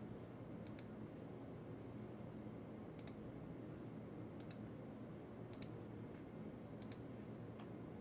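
Computer mouse button clicking about six times, most of them quick pairs of clicks, as permission boxes are ticked in a settings page. A faint steady low room hum runs underneath.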